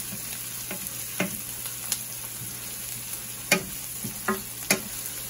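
Chopped onions and green chillies sizzling in oil in a stainless-steel sauté pan, stirred with a wooden spatula that knocks against the pan now and then, the loudest knock about three and a half seconds in.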